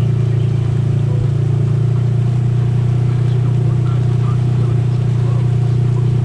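Side-by-side UTV engine running at a steady pitch, neither revving up nor slowing.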